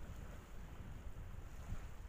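Wind buffeting the camera microphone: an uneven, gusty low rumble with a faint hiss above it.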